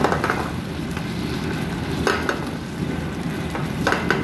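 Thick chicken adobo sauce bubbling and sizzling in a nonstick frying pan while a metal ladle stirs it, with a couple of sharper scrapes of the ladle against the pan about two seconds in and near the end.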